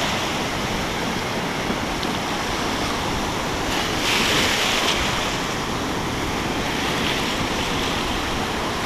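Ocean surf breaking and washing in the shallows, with a louder rush of foaming water about four seconds in.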